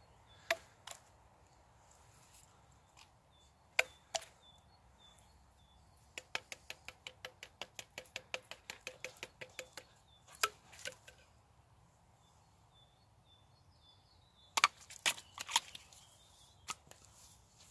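Knife blade chopping at a woody plant stalk held in the hand: sharp knocks, a few single strikes, then a quick run of about five a second, and a louder cluster of strikes near the end.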